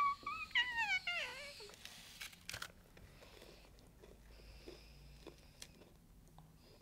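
A child's high, wordless voice sliding up and down like a meow for about two seconds. A couple of sharp clicks follow, then faint crunching as biscuits are nibbled and chewed.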